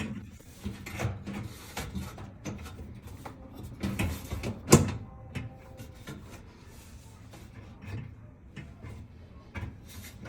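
Scattered clicks and knocks of oven parts being handled and set in place during an igniter replacement, with one sharp knock a little under five seconds in.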